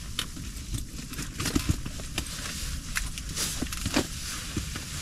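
Steady low rumble of wind against the ice-fishing tent, with scattered rustles and short clicks from clothing and tackle being handled.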